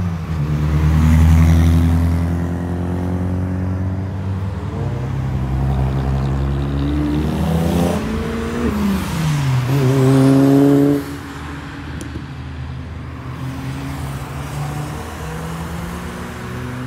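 Car engines driving past one after another: a loud steady engine drone, then revs falling and climbing again as a car accelerates hard. The sound cuts off suddenly about eleven seconds in, and a quieter engine runs after that.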